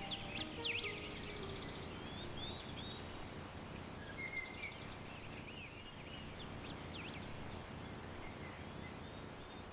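Small birds chirping with short, quick up-and-down calls over a steady rush of wind; the calls come in the first second and again in the middle. A few held musical notes fade out in the first second.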